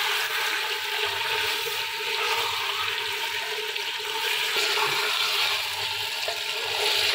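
Mutton pieces sizzling steadily in hot oil in a clay handi while being stirred with a wooden spatula: the meat searing at the start of browning, before any liquid is added.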